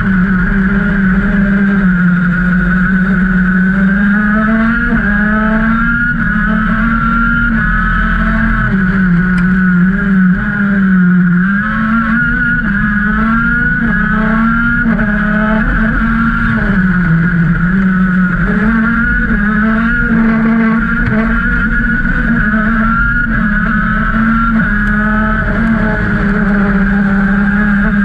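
KZ racing kart's 125cc two-stroke engine heard from onboard at racing speed, its pitch rising and falling over and over as the kart accelerates and slows through the corners.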